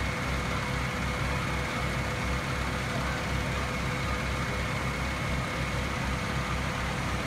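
Aerial ladder fire truck's diesel engine running steadily, a low pulsing rumble, with two faint steady tones above it.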